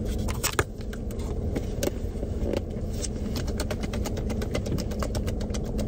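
Paper food wrapper and containers being handled, with many small crackles and clicks that come thicker in the second half, over a steady low rumble inside a car cabin.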